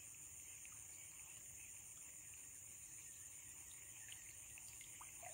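Faint outdoor ambience: a steady high-pitched insect drone, with a few faint ticks.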